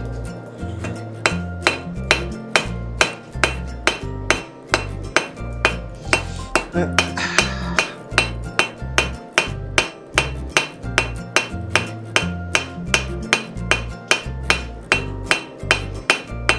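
Hammer blows on hot quarter-inch round steel bar at the anvil, a steady rhythm of about two strikes a second, each followed by a short ring. Background music with a bass line plays underneath.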